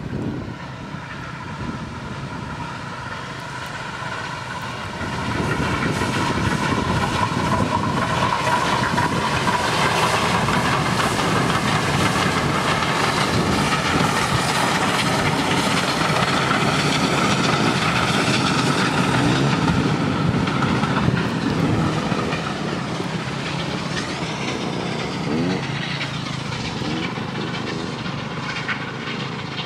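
A steam-hauled heritage train passes, with locomotive exhaust and coaches running over the rails. It grows louder about five seconds in, stays loud, and fades after about twenty seconds.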